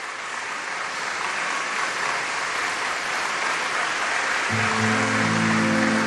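Opening of a song: an even hiss of noise swells up, and about four and a half seconds in, low sustained chords come in beneath it.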